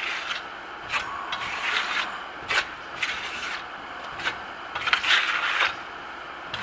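Steel Venetian plaster trowel scraping and rubbing across the wall as it spreads a thin coat of Grasello plaster, in a series of short, irregular strokes, the longest a little after five seconds in.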